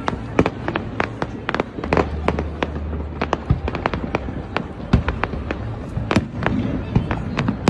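Fireworks display: a rapid, irregular barrage of sharp bangs and crackles, several a second, over a continuous low rumble. The loudest bang comes about five seconds in.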